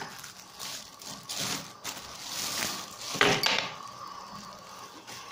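Clear plastic packaging bag crinkling as it is handled, in several uneven rustles, loudest about three seconds in.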